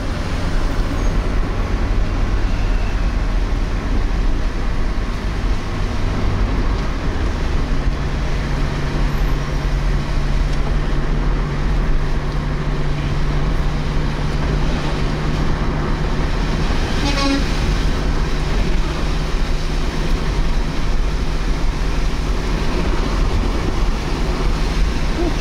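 Toyota Corolla driving on a wet highway, heard from inside the cabin: a steady engine hum over constant tyre noise on the rain-soaked road. About seven seconds in, the engine's hum moves to a higher pitch.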